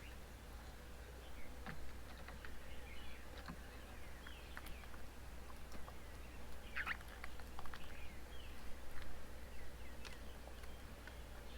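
Birds chirping and calling in short, scattered notes, a few louder calls standing out partway through.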